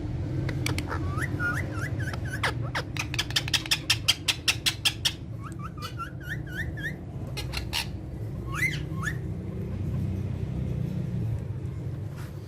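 Pet parrots calling: runs of short, rising whistled chirps, a quick series of sharp clicks at about six a second near the middle, and a single call near the end. A steady low hum runs underneath.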